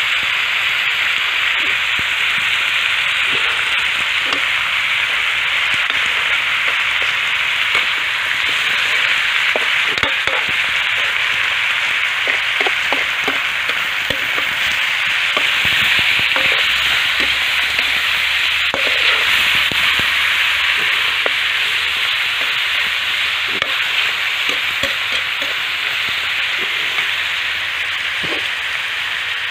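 Pork sizzling in a pan as it cooks down for adobo, a steady frying hiss throughout. Scattered light knocks and clicks come through it, bunched in the middle stretch and again near the end.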